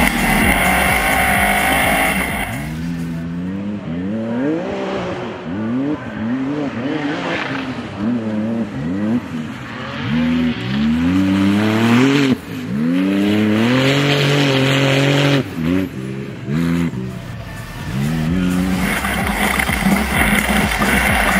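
Background music, then an off-road race buggy's engine revving up and dropping back again and again for about fifteen seconds as the car is driven hard; the music returns near the end.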